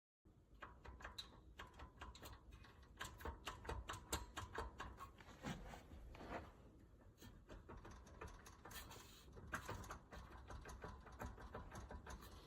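Fast, irregular light clicking and tapping, with a few louder knocks, like small hard objects being handled.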